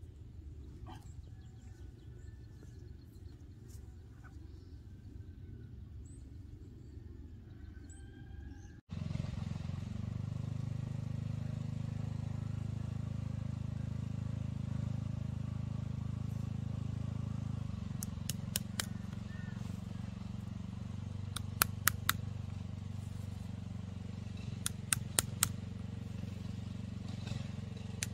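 Quiet outdoor background with faint chirps, then a sudden switch to a steady low hum. Over the hum come sharp clicks in quick groups of two to four, from holes being punched in a black irrigation hose.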